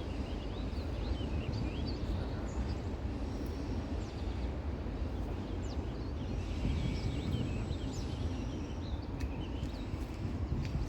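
Outdoor ambience: many short bird chirps and twitters over a steady low rumble.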